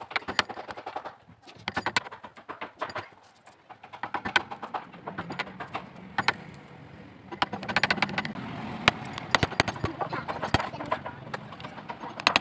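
Steel wood chisel chipping out a saw-kerfed wooden block held in a steel vise: quick runs of sharp clicks and knocks as chips split away, with short pauses between runs.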